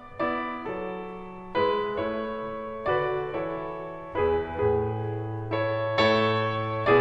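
Background piano music: notes struck one after another and left ringing, with a low bass note held from about halfway through.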